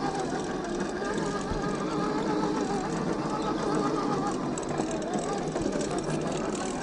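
Axial SCX10 II RC crawler's 550 21T brushed electric motor and gearbox whining as it crawls over rocks, the pitch wavering up and down with the throttle.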